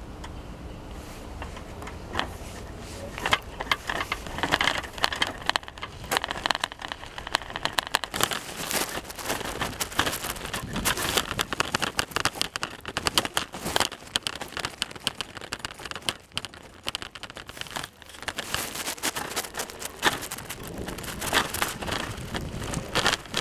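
Dry fallen leaves crunching and crackling underfoot as someone walks along a leaf-covered trail, an irregular run of crisp crackles with a brief lull about two-thirds of the way through.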